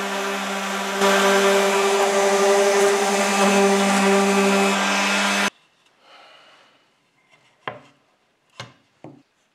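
Wesco random orbit sander running, sanding the edges of a plywood piece with a steady hum that gets louder about a second in and cuts off suddenly a little past halfway. Then three short wooden knocks as the plywood pieces are set together on the bench.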